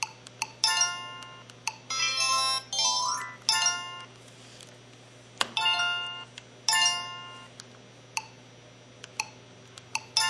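LG-SD820 mobile phone playing its built-in electronic sound effects one after another: short chime-like jingles, one climbing in a rising run of notes, with single short beeps between them.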